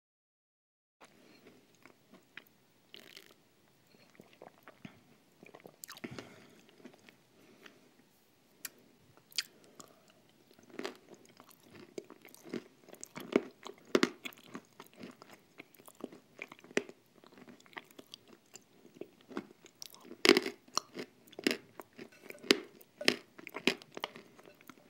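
Close-miked eating of a thick paste mixed with crumbs: irregular wet mouth smacks and crunchy chewing, sparse at first and growing louder and busier about halfway through.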